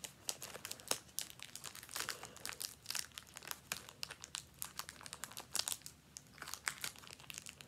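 Crinkly packaging, such as a trading-card wrapper, being handled: a dense, irregular run of small crackles and rustles.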